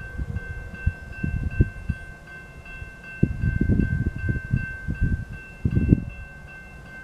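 Railroad crossing warning bell ringing in a fast, even ding, about three strokes a second, while the crossing gates come down for an approaching train. Irregular low rumbling runs underneath.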